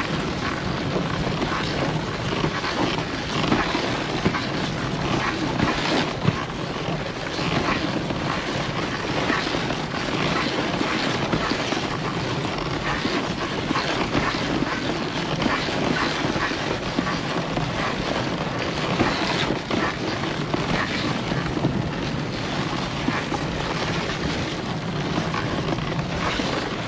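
Dog sled running along a snowy trail: a steady scraping hiss of the runners on packed snow, with constant fine rattling and clatter from the sled.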